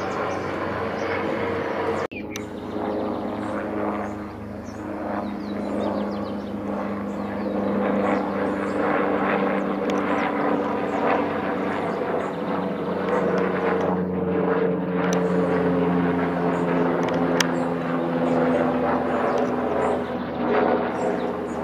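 Airbus H225M Super Cougar twin-turbine military helicopter flying overhead: a loud, steady drone of engines and rotor whose pitch drifts slowly as it moves. There is an abrupt break about two seconds in.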